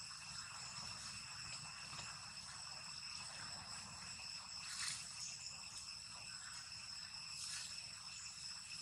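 Steady, faint high-pitched drone of insects in the surrounding forest, with a brief louder rustling noise about five seconds in.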